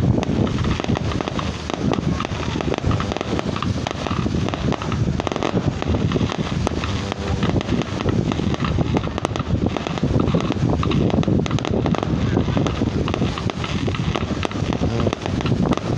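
Wind blowing across the microphone in a steady rush, with faint pops and crackles from distant fireworks.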